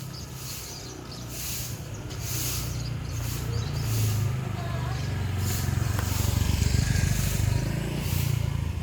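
A motor vehicle engine running close by, a low rumble that grows louder about three seconds in and eases off near the end.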